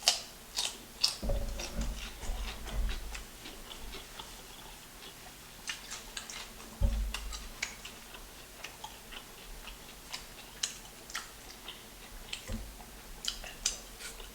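Close-miked chewing of Chick-fil-A chicken with sauce: irregular wet mouth clicks and smacks, with a few dull thumps about a second in, around the middle, and near the end.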